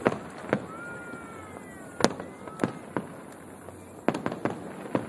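Aerial fireworks going off: a string of sharp bangs at irregular intervals, with a quick cluster of several bangs about four seconds in.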